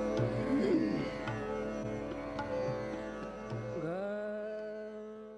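Indian classical-style instrumental music on a plucked string instrument, with low drum strokes. Near the end a note slides up in pitch, and the music fades out.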